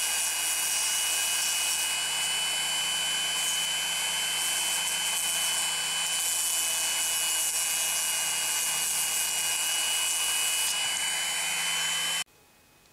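Small handheld rotary tool running at high speed with a steady high whine, its spinning bit held against a folded piece of sandpaper. The sound stops abruptly near the end.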